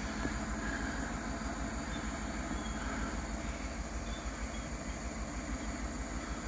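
A truck engine idling, a steady low rumble.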